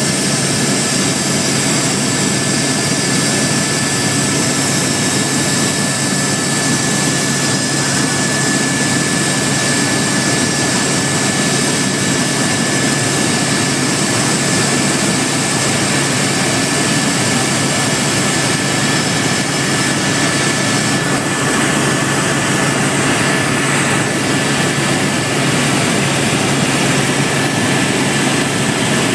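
Helicopter in flight, heard from inside the cabin: a constant loud drone of engine and rotor with a steady high whine over a low hum.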